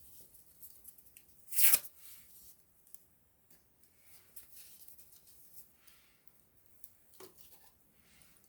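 Small wood campfire crackling, with scattered light crackles, one louder sharp snap about two seconds in and a smaller pop near the end.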